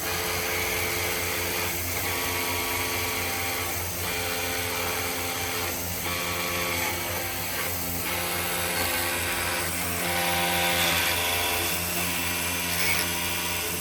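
Electric motor of a bead-making woodworking machine running steadily with a low hum; the pitch of its tones shifts every few seconds.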